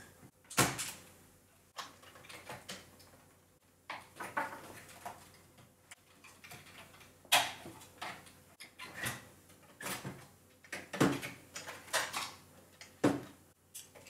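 Plastic snap-in clips of a Power Macintosh 8100's chassis clicking and clacking as the logic board is pried free and worked out of the case. There are sharp clicks a second or more apart, the loudest about halfway through and near the end, with plastic and circuit-board scraping between them.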